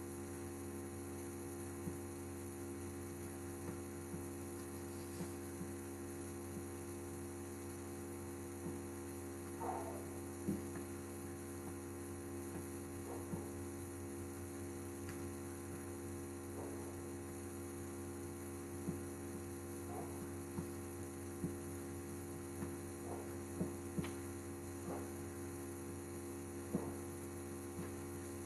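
A steady electrical mains hum, over which high heels tap and scuff on a tiled floor in a dozen or so faint, irregular clicks as the wearer shifts her feet.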